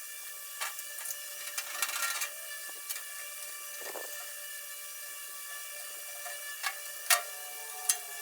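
Hardware being fitted to a tool chest: scattered clicks and knocks of small parts being handled and fastened, with the sharpest ones near the end, over a steady hum.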